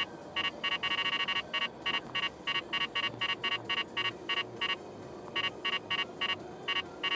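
Valentine One radar detector sounding its Ka-band alert: a fast train of short electronic beeps, briefly very rapid about a second in, then about four a second with a short pause near five seconds, over steady road noise inside a moving car. The alert is set off by a Ka-band photo radar truck's signal, picked up only after the truck has been passed.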